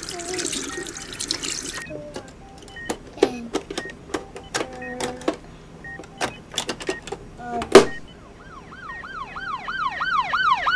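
Small plastic clicks and knocks as Playmobil toy pieces are handled, with one sharper knock about three-quarters of the way through. Then a siren starts up, wailing up and down quickly, about three to four sweeps a second.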